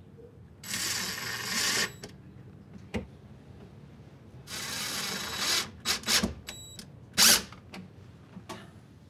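DeWalt cordless drill running in two bursts of about a second each with a high motor whine, drilling and driving screws into the cabinet base to fix a bin bracket. A few clicks follow, then a sharp knock.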